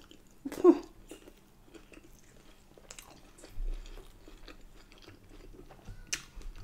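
Close-miked chewing of a mouthful of corned beef hot pot and Yorkshire pudding: soft wet mouth clicks and smacks, with one short louder mouth sound about half a second in.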